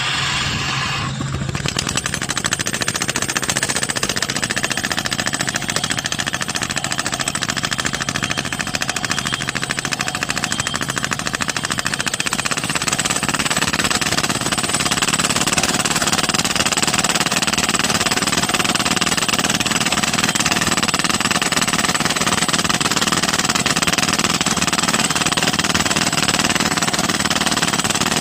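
Shakti 190 rock drilling machine drilling into hard rock: a loud, rapid, steady hammering rattle over a running engine.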